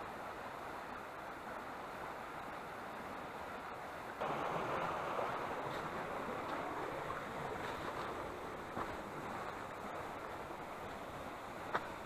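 Mountain stream rushing over rocks, a steady even noise that jumps louder about four seconds in. A few light ticks and one sharper click near the end.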